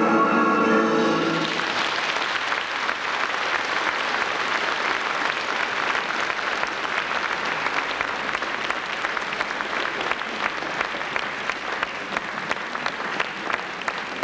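Music ends about a second and a half in, and a large audience applauds steadily for the rest.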